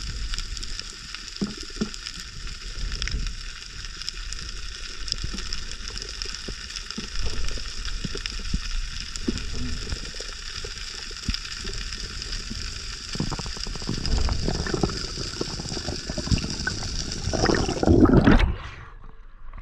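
Underwater sound picked up by an action camera in its housing during a freedive: a steady hiss with scattered clicks and low water rumble. Near the end there is a loud rush of water as the camera nears the surface, and then the hiss cuts off.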